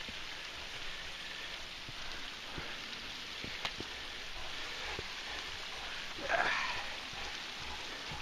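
Steady hiss of rushing water from a nearby creek or falls, with a few light clicks from steps on rock. About six seconds in, a brief vocal sound rises in pitch.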